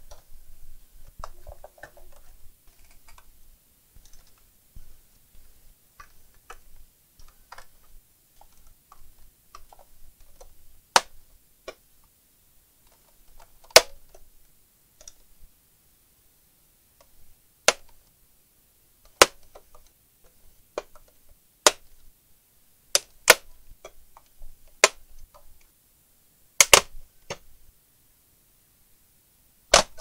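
Plastic retaining clips of an Asus all-in-one computer's casing snapping loose as the cover is pried apart by hand and with a plastic pry tool. Faint scraping and handling come first, then about a dozen sharp, separate snaps at irregular intervals through the second half.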